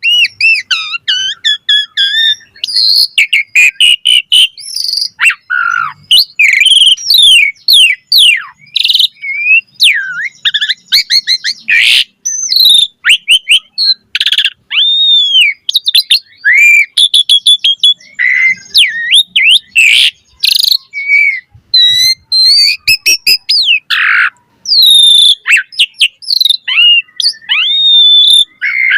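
Asian pied starling singing a long, varied song: quick whistles, chirps and sweeping up-and-down glides follow one another with hardly a pause, with a few short harsh notes mixed in.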